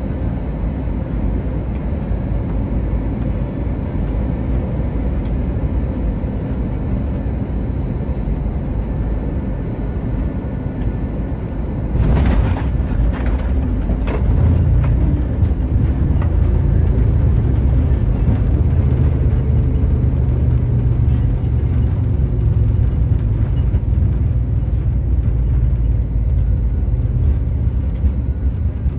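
Cabin sound of an Airbus A321neo landing: steady engine and airflow noise, then about twelve seconds in a sudden jolt and rattle as the wheels touch down. From about fourteen seconds a louder, steady low rumble of the engines and wheels follows as the aircraft slows on the runway.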